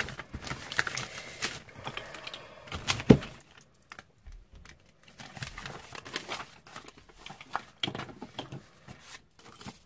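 Paper sheets and a plastic stencil being handled and laid on a desk: rustling with light taps and clicks, and one sharp knock about three seconds in.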